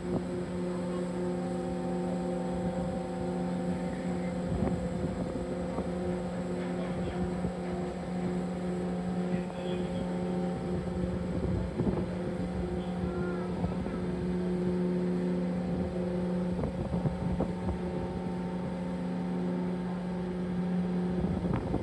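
Steady machinery drone at a fixed pitch, with scattered knocks and rumbles, as a cruise ship's tender boat is hoisted back aboard.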